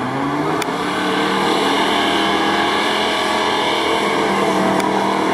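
Lada Niva off-roader's engine revving hard as it ploughs through a mud bog. The pitch climbs in the first second and then holds high, with mud and water splashing around the wheels.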